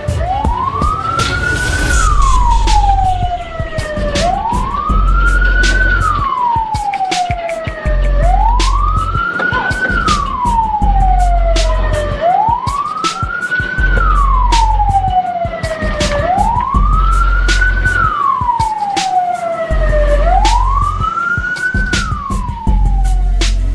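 Emergency vehicle siren wailing, its pitch sliding up and falling back down about every four seconds, six times over, with a low rumble underneath.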